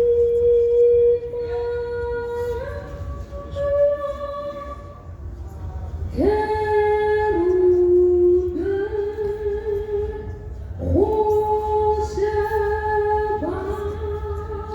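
A woman singing unaccompanied, in phrases of long held notes that step up and down in pitch, over a low steady hum.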